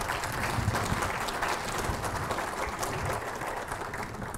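Audience applauding: many people clapping steadily, dying away near the end.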